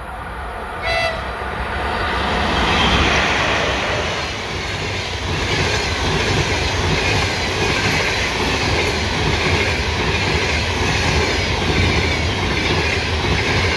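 ChS7 electric locomotive gives one short toot of its horn about a second in, then passes at speed. Its passenger coaches follow, rolling past fast with a loud, steady rush of wheel and rail noise.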